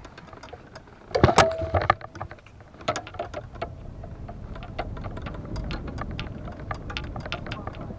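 Golf clubs rattling and clinking in a bag on a moving golf cart, with a louder clatter and a brief metallic ring about a second in, over the low rumble of the cart driving.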